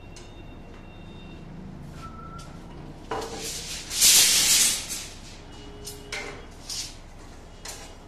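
Steel reinforcing bars being handled: a few sharp metallic clanks and one loud scrape lasting under a second about four seconds in.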